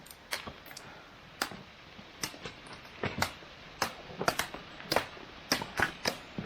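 Frozen waterfall ice being pounded: sharp, irregular knocks and cracks, one or two a second.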